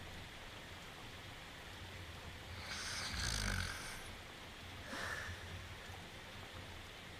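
A cartoon dog character snoring in his sleep: one long snore about three seconds in and a fainter one about two seconds later, over a steady hiss of falling rain.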